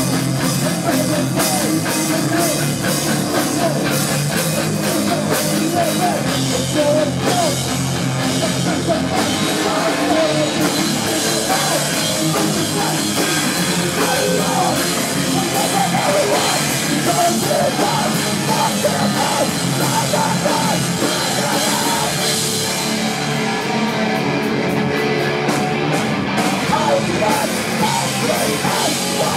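1990s-style hardcore band playing live: distorted electric guitar over a drum kit, loud and continuous.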